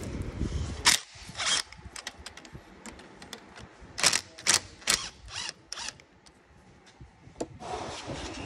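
Hand tools and metal parts clicking and clacking as parts of a Ford Escape's A/C condenser assembly are worked loose: irregular sharp clicks, loudest in a cluster about four to five seconds in. A low rumble underneath fades out about a second in.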